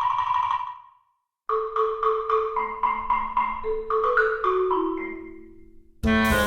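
Background music: a light mallet-percussion tune. It fades out about a second in, and after a short gap a new phrase of struck notes starts over a slowly falling line of held lower notes. A louder, fuller passage begins near the end.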